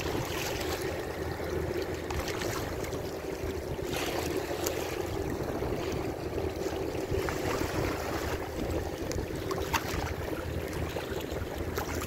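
Steady drone of a pusher tug's diesel engine as it pushes a line of barges along the river, over water lapping with small splashes and some wind on the microphone.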